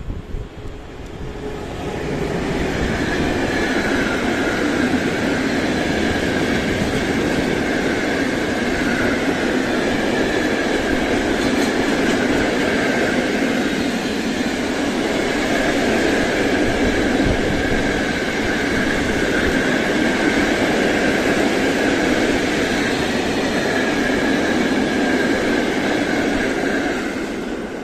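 PKP Cargo ET22 electric locomotive and its freight wagons rolling past close by: a steady rumble of wheels on rail with a continuous high squeal over it. It builds over the first two seconds and falls away near the end as the last wagons pass.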